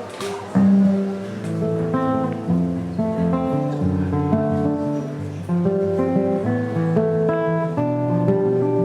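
Acoustic guitar playing a plucked melody, a new note about every half second with the earlier notes left ringing.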